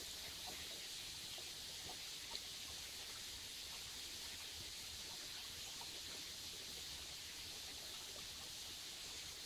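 Shallow stream running over stones: a faint, steady hiss of moving water, with a few small ticks.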